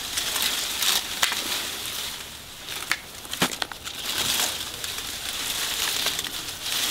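Leaves and twigs rustling and crackling as a long bamboo picking pole is pushed up through a tree's foliage, with several sharp snaps of twigs along the way.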